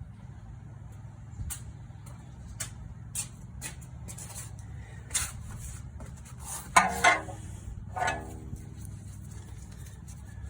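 Metal tools and suspension parts clinking and clanking during strut work: scattered sharp knocks, with the two loudest, ringing metal strikes a little past the middle. A steady low hum runs underneath.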